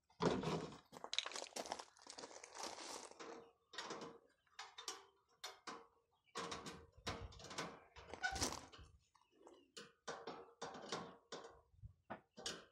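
Sheet-metal panels and rails of a chicken nesting box being handled and slid together: irregular scraping, rattling and light knocks of metal on metal, some longer scrapes and some short knocks, with short pauses between.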